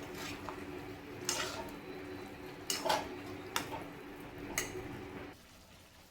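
A metal spoon stirring in a cooking pot, clinking against the pan about six times, over a steady low hum that cuts off shortly before the end.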